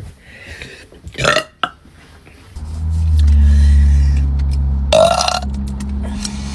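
A person burping: a short throaty belch about a second in and another near the five-second mark. A loud, steady low rumble starts about two and a half seconds in and runs on underneath.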